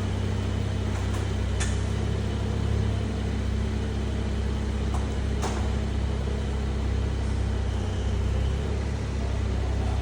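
Car engine idling with a steady low hum that holds unchanged throughout.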